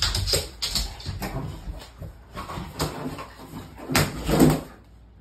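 XL Bully dog pouncing on and mouthing inflated rubber balloons on a laminate floor: a series of irregular knocks and scuffs, loudest about four seconds in as it gets a balloon in its mouth.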